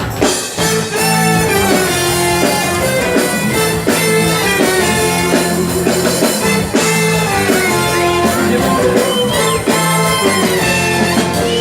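Live band playing an instrumental passage of an upbeat carnival song, with a steady beat and no vocals.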